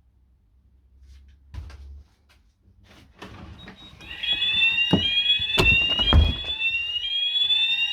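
Fire alarm sounders on a Hochiki ESP addressable system start about halfway through, set off by a detector test. They sound a loud rising sweep that repeats about once a second. A few faint knocks come before the alarm, and two loud thumps come soon after it starts.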